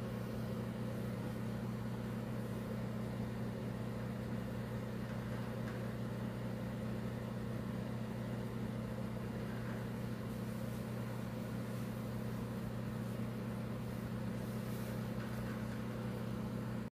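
A steady low electrical hum, like a motor or appliance running, unchanging throughout.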